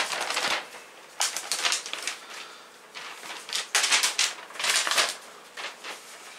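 Paper rustling and crackling in irregular bursts as a large fold-out paper user's guide is unfolded and handled.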